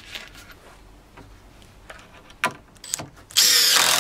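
A few sharp clicks and knocks of tool handling, then about three-quarters of a second in from the end a cordless Makita 18V impact driver running loudly as it drives a screw into a wooden board, stopping suddenly.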